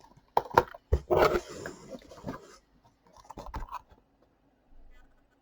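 Handling of blister-carded Matchbox die-cast models: a few sharp knocks and clicks, then about a second and a half of scraping and rustling of the plastic and card packaging, then more clicks.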